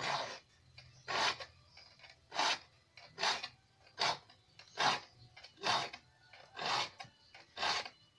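A hand file rasping across the teeth of a crosscut hand saw to sharpen them: about nine even strokes, roughly one a second.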